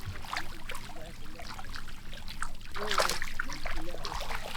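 Fish splashing in shallow muddy water: many small scattered splashes and trickles, busiest about three seconds in, with faint voices in the background.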